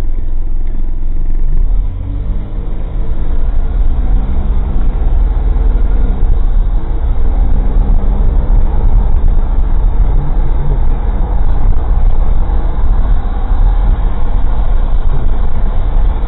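Engine and road noise of an old kei car driving, heard from inside the cabin through a cheap dashcam microphone: a steady low rumble with the engine note shifting up and down. The sound drops briefly about two seconds in, then comes back.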